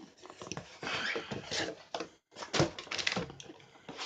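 Packing material rustling and items knocking as things are pulled out of a shipping box, in irregular bursts.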